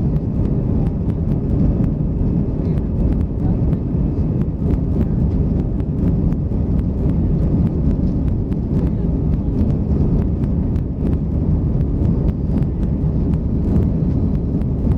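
Steady low roar of Airbus A320 cabin noise in the climb: engine and airflow noise heard inside the fuselage by the window.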